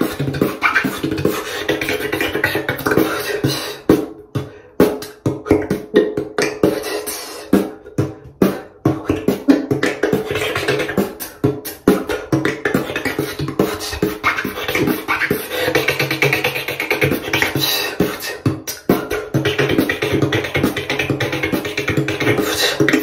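Solo freestyle beatboxing: fast mouth-made drum sounds, sharp kicks, snares and hi-hat clicks, over a held low hum. A few seconds in, the pattern thins out to sparse separate hits before the dense beat comes back.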